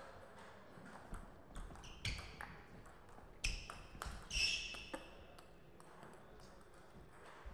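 Table tennis rally: the ball clicks off bats and table in a quick series of sharp hits, several of them ringing with a high ping. The hits run from about a second in to about five seconds in and then stop.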